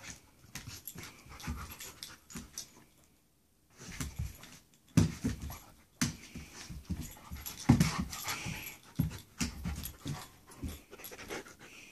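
A dog panting and sniffing as it paws and noses at its toys on the floor, with irregular scuffs and knocks of paws and toys, and a short pause about a third of the way in.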